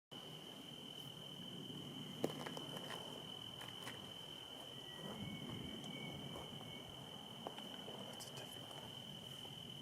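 Crickets trilling steadily at one high pitch, over a faint low rustle, with a sharp click about two seconds in.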